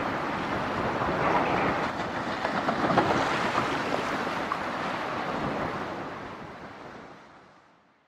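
Steady rushing wash of sea waves and wind, with no horn sounding, fading out over the last two seconds or so.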